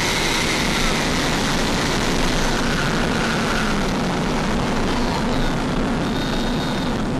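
Electric ducted fan of a Freewing F-5 RC jet whining steadily at low power as the model taxis on the runway, heard from its own onboard camera over a dense rushing noise.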